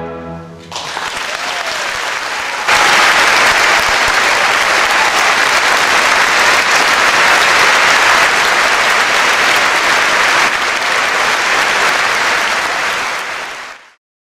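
The orchestra's final chord ends within the first second, then a concert-hall audience applauds. The applause jumps louder about three seconds in and cuts off abruptly near the end.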